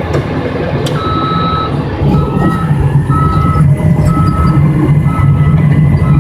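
Bulldozer backup alarm beeping about once a second while the dozer reverses, over the steady running of its diesel engine, which grows louder about two seconds in.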